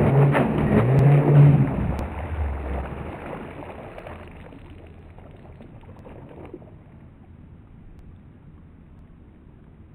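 Feilun FT012 RC racing boat's brushless electric motor, on a 3S LiPo, running at speed: a pitched whine with spray hiss. It drops away over the first three seconds as the boat stops, leaving only faint wind and water hiss.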